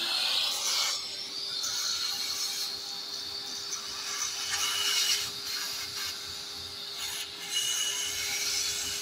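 Shop vacuum running with a steady motor tone, its straw-tipped hose sucking drill shavings out of a freshly drilled hole in the cylinder head. The rush of air and debris rises and falls as the nozzle is moved around the hole.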